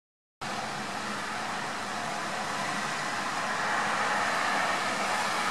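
Steady, even outdoor noise hiss with no distinct events, cutting in abruptly just under half a second in.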